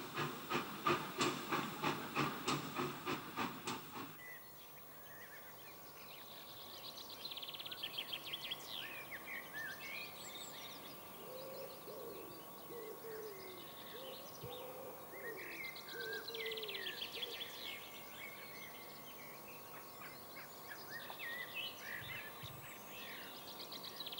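Steam tank locomotive exhaust beats, about four chuffs a second, that stop suddenly about four seconds in. Birdsong follows: high songbird trills and chirps, with a series of low cooing calls in the middle.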